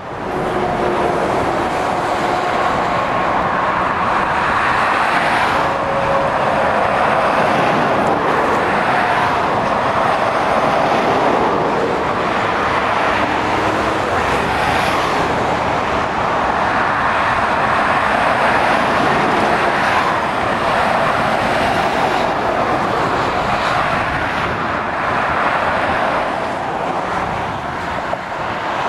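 Motorway traffic passing below: articulated lorries and cars, a continuous steady noise of tyres and engines.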